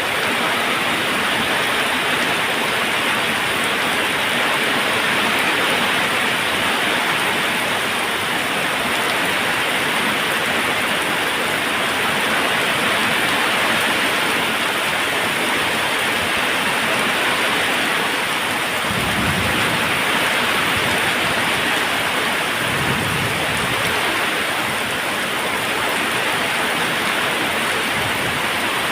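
Waterfall: a steady rush of falling water, with two brief deeper surges about two-thirds of the way in.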